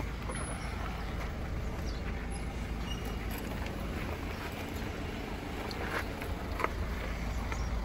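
Steady low rumble of an idling vehicle engine, with two light clicks about six seconds in.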